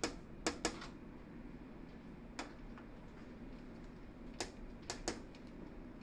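Sharp taps and clicks on a clear plastic birdcage, about seven in all at irregular moments, some in quick pairs, in a small room.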